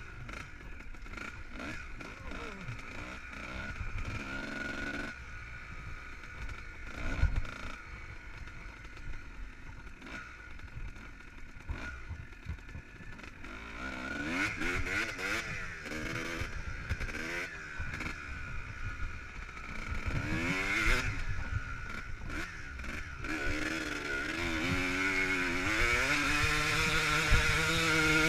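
Kawasaki KX250 dirt bike engine on the move, revving up and down as it rides through sand. The revs are lower at first and rise and fall repeatedly in the second half, getting louder toward the end.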